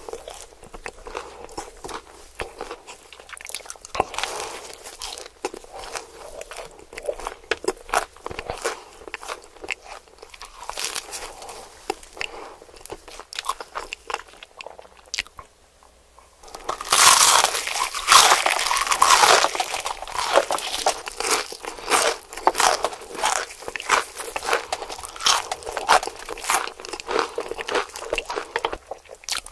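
Close-miked crunching and chewing of crispy KFC fried chicken, bite after bite. A brief lull about halfway through, then louder, denser crunches.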